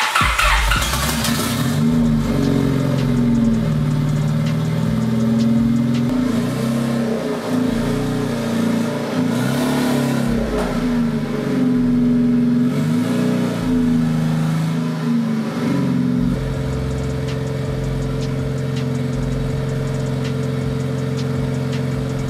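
The turbocharged Honda Civic's D16 four-cylinder engine, just fitted with a budget eBay turbo kit, runs with its revs rising and falling repeatedly. About sixteen seconds in it settles to a steady idle.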